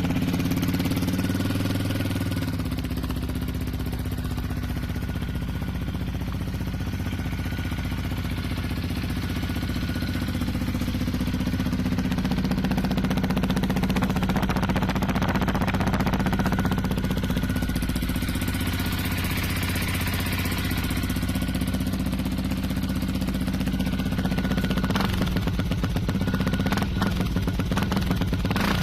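Yamaha WR125's single-cylinder four-stroke engine idling steadily.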